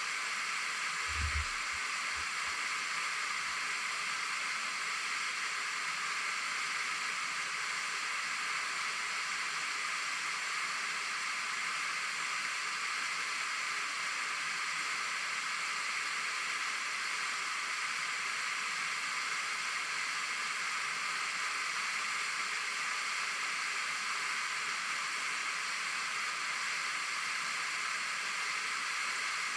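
Waterfall rushing steadily, heard as an even hiss with little low end. There is a brief low thump about a second in.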